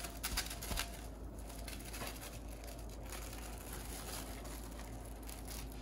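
Plastic wrap crinkling and rustling as it is handled: a few sharp crackles in the first second, then softer rustling.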